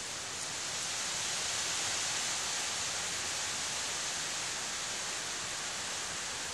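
A steady, even hiss, strongest in the high range, with no distinct crunches standing out.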